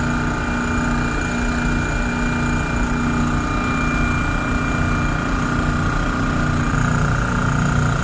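Refrigerant recovery machine's compressor running steadily as it pumps R-404A refrigerant into a small cylinder, a constant mechanical hum that grows slightly stronger near the end.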